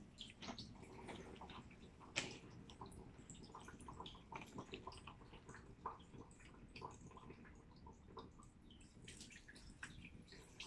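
Faint splashing and dripping of water from a foot-pumped portable sink's faucet, running over hands and into the plastic basin, with one sharp knock about two seconds in.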